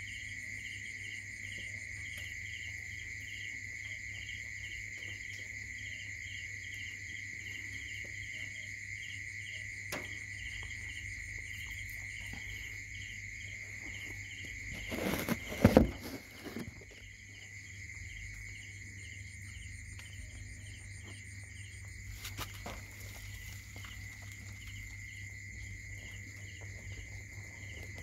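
Insects chirping steadily: a continuous high trill with a regular pulsing chirp above it. A loud, short bump and rustle about halfway through.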